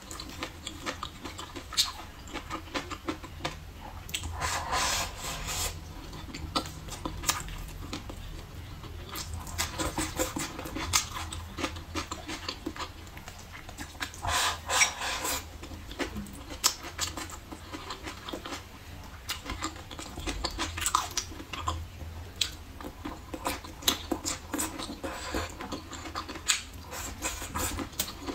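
Chewing and wet mouth sounds of someone eating braised pork ribs and green peppers, with chopsticks clicking against a ceramic bowl now and then.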